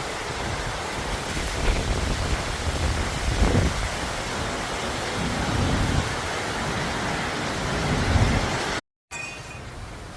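Heavy rain pouring down in a dense steady hiss, with several low rumbling swells from gusts or thunder. The sound cuts off suddenly near the end and comes back much quieter.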